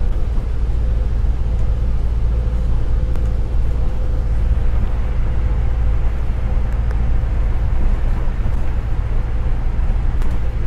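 Steady low drone of an MCV-bodied double-decker bus on the move, its engine and road noise heard from inside the upper deck, with a faint constant whine running through it.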